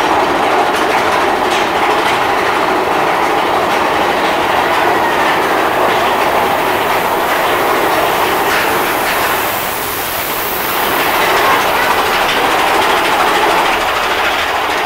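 Big Thunder Mountain Railroad mine-train roller coaster rolling along its track: a steady rumble and clatter of the train's wheels on the rails, heard from on board, easing slightly about two-thirds of the way through.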